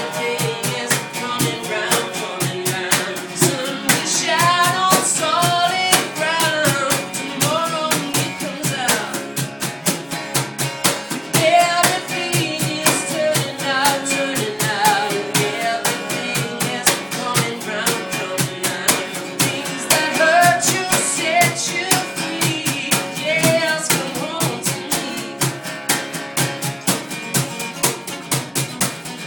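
Live rock band playing an acoustic arrangement: acoustic guitar and a drum kit keeping a steady beat with rimshots, a male lead voice singing phrases over it, recorded on a phone in the audience.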